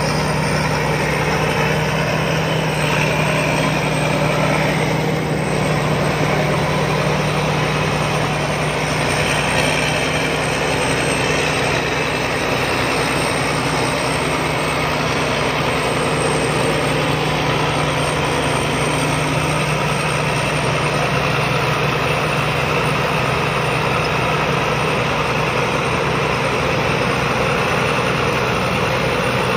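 Sakpattana KMT 240 rice combine harvester running steadily, a constant heavy engine hum with machinery noise that holds level throughout.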